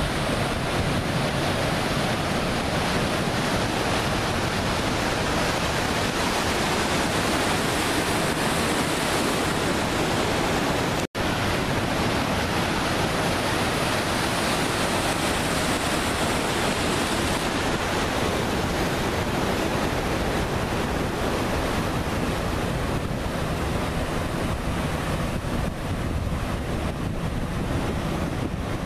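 Ocean surf washing steadily, with wind on the microphone. The sound cuts out for an instant about eleven seconds in.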